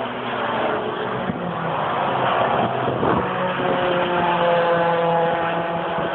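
Saloon race cars' engines at high revs as the cars pass by at speed, one after another, their engine notes shifting in pitch as each goes by.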